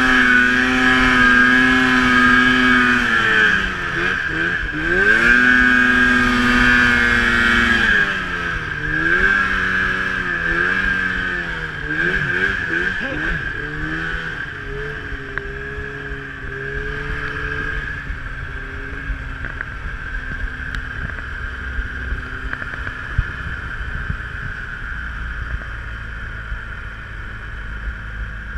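Arctic Cat snowmobile engine held at steady revs, then revs dropping and climbing again and again as the throttle is worked, from about 3 to 14 seconds in. After that it eases off, and a steady whine and hiss of the running sled with wind carries on, quieter.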